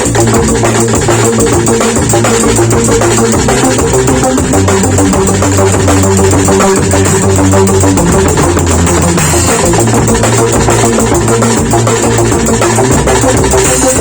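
Drum kit played continuously over a backing track with bass and guitar, dense hits and cymbals throughout.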